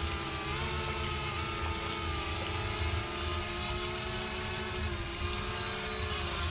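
Small quadcopter drone in flight, its propellers whining as several steady tones that shift slightly in pitch.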